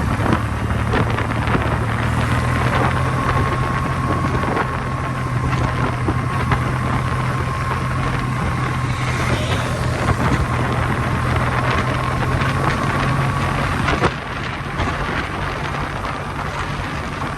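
Kawasaki W800's air-cooled parallel-twin engine and exhaust running steadily while the bike is ridden on the road, with wind and road noise over it. The engine note drops away about fourteen seconds in.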